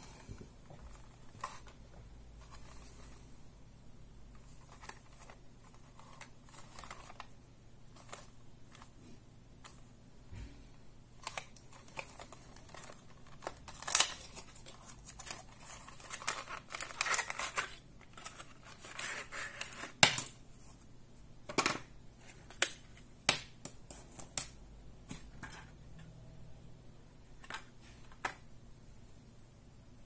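Hands handling and opening a small cardboard retail box and its plastic packaging: scraping, rustling and sliding of cardboard and plastic, with scattered clicks and a few sharp taps, busiest in the middle.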